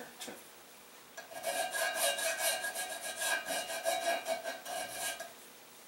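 Hand file rasping back and forth on an edge of a Harbor Freight arbor press casting, taking off a sharp edge. The quick strokes, about four a second, start about a second in and stop near the end, with a steady ringing squeal sounding under them.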